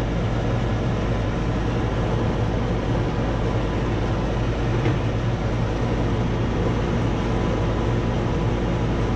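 Air conditioner air handler running: a steady rush of the blower with a low hum underneath.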